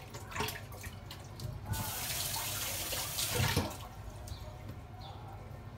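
Kitchen tap running into a steel sink for about two seconds while a spoon is rinsed under it, with a few light clicks and knocks just before the water starts.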